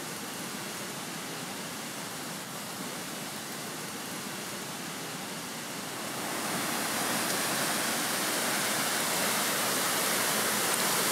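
Waterfall rushing: a steady, even noise of falling water that grows louder about six seconds in.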